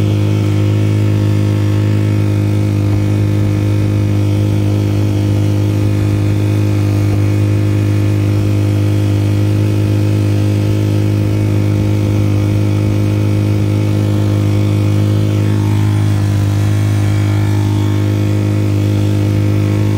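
Tohatsu 3.5 hp four-stroke single-cylinder outboard motor running steadily under way, pushing a small boat. It holds a constant low, even hum.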